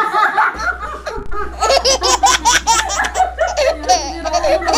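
Women laughing hard, in quick repeated bursts of pitched laughter.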